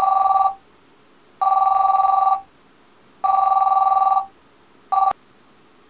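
Samsung flip cell phone ringing: a steady two-tone electronic ring in bursts of about a second, repeating every couple of seconds, the last ring near the end cut off after a fraction of a second.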